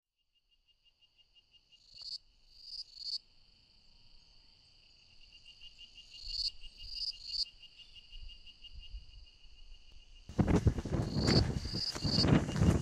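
Insects chirping: a steady, fast-pulsing high trill, with groups of three rising buzzy calls that swell and cut off sharply. From about ten seconds in, a loud, rough crackling and rustling noise comes in over them.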